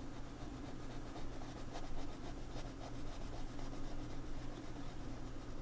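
Mechanical colored pencil with 0.7 mm lead scratching on sketch-pad paper in soft, irregular strokes.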